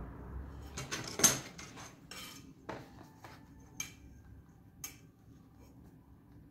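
Copper pipes and a steel ruler being handled and set down on a wooden workbench: a few sharp metallic clinks and knocks, the loudest about a second in, then lighter taps.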